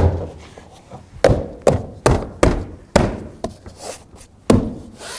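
Door trim panel being thumped by hand to snap its push clips into the door: about nine dull knocks, roughly two a second.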